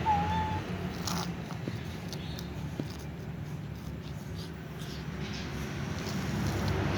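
A cat gives one short meow right at the start, over a steady low rumble, with a few faint clicks after it.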